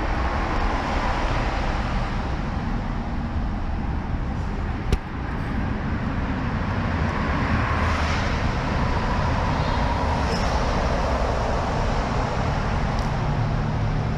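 Steady vehicle noise: a low engine hum under a wide rushing hiss, with one sharp knock about five seconds in and a steadier low hum setting in near the end.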